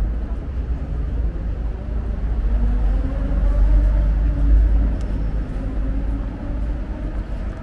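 City street traffic: a steady low rumble that swells to a peak a little past the middle and then eases, as a vehicle passes close by.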